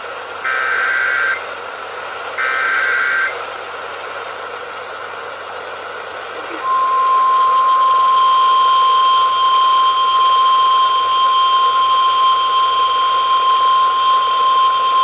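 Emergency Alert System signal heard over AM radio: two SAME header data bursts of harsh digital warble, each about a second long, then a few seconds of radio hiss, then a long, steady EAS attention tone beginning about six and a half seconds in.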